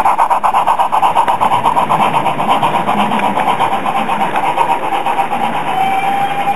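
Model train running past: the locomotive's small electric motor whines steadily, with a rapid, even clatter of wheels on the track at about six beats a second. Both grow a little fainter near the end as the train draws away.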